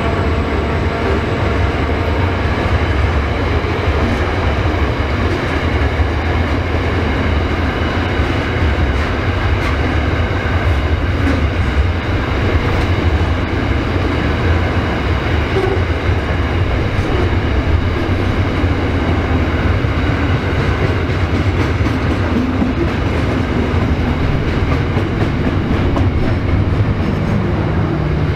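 Freight train rolling past, with a steady, loud rumble of wagons on the rails.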